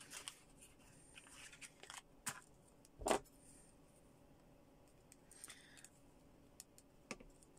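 Faint clicks and light rustling of small packaging being handled and opened, with one sharper click about three seconds in.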